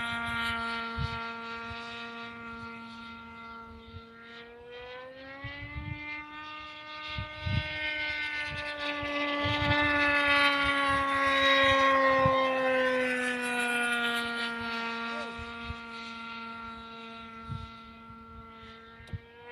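Small two-stroke glow engine of an RC pylon-racing model plane running flat out in flight, a steady high whine. Its pitch rises slightly about five seconds in and sinks back later as the plane circles, and it grows loudest midway before fading.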